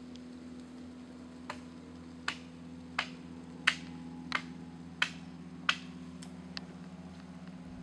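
A series of about eight sharp clicks, roughly one every two-thirds of a second, the last one fainter, over a steady low hum.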